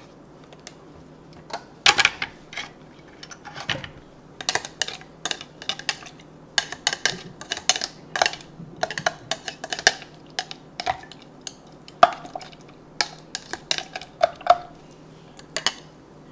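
A metal spoon clinking and knocking inside a jar as shredded carrot is packed down into it. The clicks are irregular and come several times a second, starting about two seconds in.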